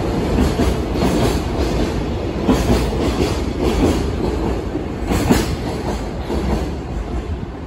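A freight train's container wagons passing at speed: a steady rumble with repeated clacks as the wheels cross the rail joints, fading as the last wagon goes by near the end.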